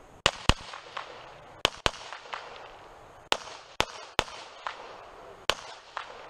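Handgun shots: about eight sharp cracks, unevenly spaced and several in quick pairs, with fainter cracks in between.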